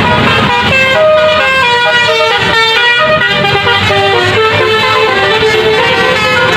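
Tour bus musical horn (telolet-style klakson) playing a stepping melody of held notes.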